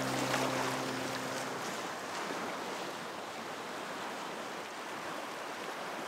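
Sea water washing against a rocky shore, a steady rushing hiss. Background music fades out in the first second and a half.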